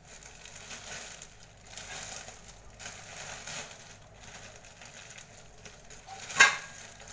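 Clear plastic wrapping crinkling and rustling as it is handled and pulled off a pressure-cooker lid, with one sharp click about six seconds in.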